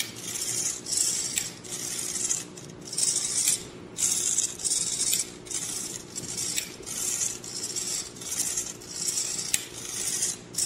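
HXT900 micro servo whirring in short raspy bursts, roughly one or two a second, as it tilts the GoPro mount back and forth to keep the camera level while the quadcopter is rocked by hand: the flight controller's camera stabilization at work.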